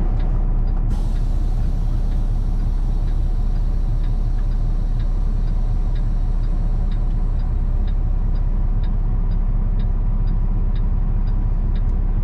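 Tanker truck's diesel engine idling steadily, a low rumble. In the second half a faint, regular ticking comes about twice a second.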